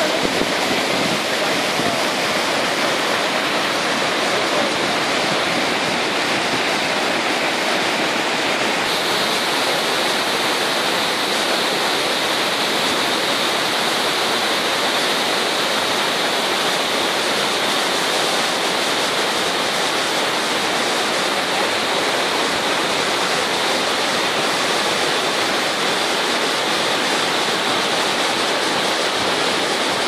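Steady rushing of a mountain waterfall and stream cascading over rocks and boulders. Its tone turns a little brighter about nine seconds in.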